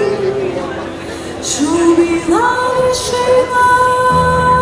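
Live Ukrainian folk-jazz band: a woman sings, sliding up about halfway through into one long held high note, over acoustic guitar, with double bass coming in near the end.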